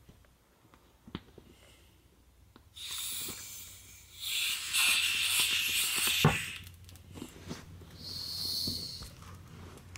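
Air hissing out through the open valve of an inflatable vinyl swim ring as it is pressed to deflate it. A few small handling clicks come first; the hiss starts about three seconds in and comes in surges, with a knock a little past halfway.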